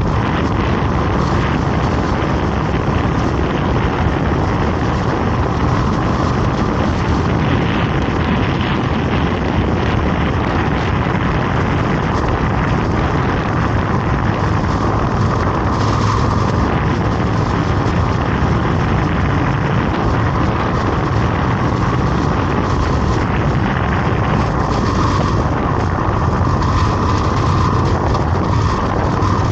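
Steady noise of a vehicle travelling along a road, running evenly throughout.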